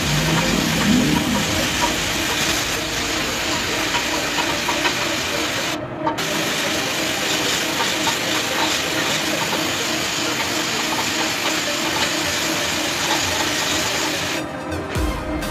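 Gravity-feed air spray gun hissing steadily as it sprays paint, cutting out for a moment about six seconds in and stuttering on and off near the end as the trigger is released.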